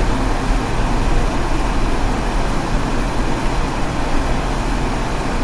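Steady vehicle noise: a low rumble under an even hiss, with no distinct events.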